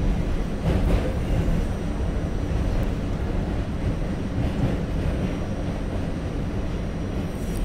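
New York City subway train of R68-series cars running at speed, heard from inside the front car: a steady low rumble of steel wheels on rail and running gear, with a faint steady high whine.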